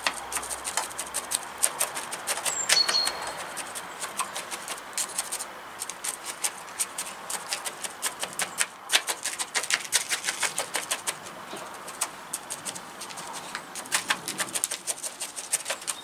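A bamboo chopstick poking and stirring loose bonsai substrate in a plastic pot, giving a rapid, irregular run of small gritty clicks and scratches. The substrate is being worked in around the roots of a freshly potted birch to settle it and fill the gaps.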